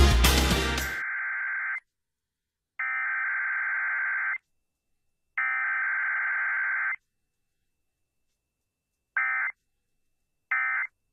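Emergency Alert System digital (SAME) header tones from a radio stream: a loud crackle at the start, then three harsh buzzing data bursts of about a second and a half each, a second apart. Near the end come two short bursts, the end-of-message code.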